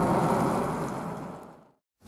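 Airbus A319-111's CFM56 jet engines heard overhead from an airliner on approach with its gear down: a steady engine noise with a faint whine. It fades out smoothly to silence over about a second and a half.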